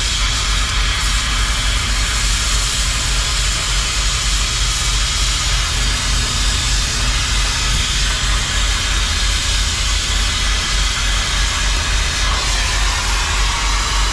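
Oxy-fuel cutting torch hissing steadily as it cuts through the steel at a semi-trailer's axle end, over a steady low rumble. The hiss changes a little near the end.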